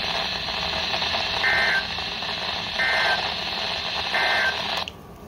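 Emergency Alert System end-of-message data tones: three short, buzzy two-pitch bursts about 1.4 seconds apart, heard over steady radio hiss. They mark the end of a broadcast tornado warning. The signal cuts out near the end.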